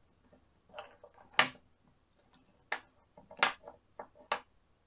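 Hard plastic pop-it puzzle cubes being handled and pulled apart, giving about five sharp plastic clacks. The loudest clacks come about a second and a half in and again near three and a half seconds.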